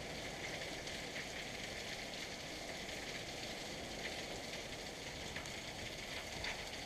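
Heavy rain falling steadily on garden trees and ground, with a few sharper drop ticks.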